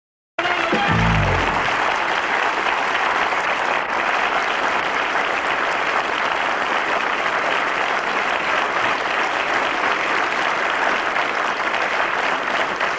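Studio audience applauding steadily, with a short falling low note right after a brief dropout at the start.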